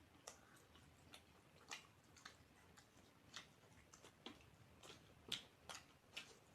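Faint mouth sounds of someone eating: scattered soft clicks and smacks of chewing, about a dozen spread over several seconds.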